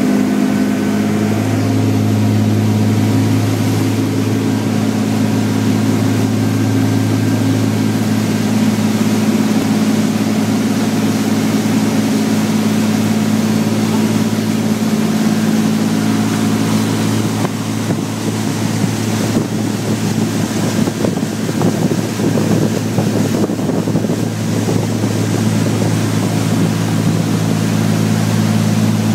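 Amity class pilot boat under way at speed: its engines give a steady low drone over the rush of the churning wake and wind. Between about 17 and 24 seconds the engine note drops back and the water and wind noise comes to the fore, before the drone returns.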